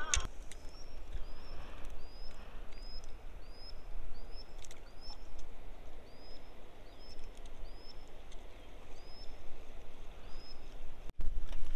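A bird calling over and over, a short high chirp that rises and drops back, about three every two seconds, then stops near the end. Under it, a steady low rumble of wind on the microphone.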